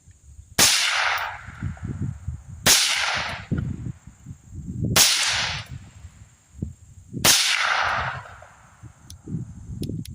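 Four suppressed shots from a 16-inch-barrel AR-15 fitted with an OCL Polonium suppressor, firing 55-grain .223 Remington into the dirt. The shots are evenly spaced, a little over two seconds apart, and each sharp crack is followed by a short fading tail.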